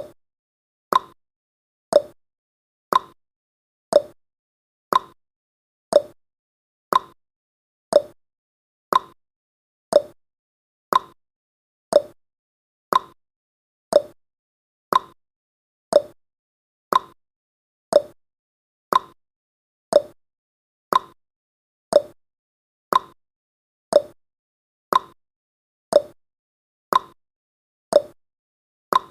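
Clock-ticking sound effect of a countdown timer: one short, sharp tick every second, steady and even.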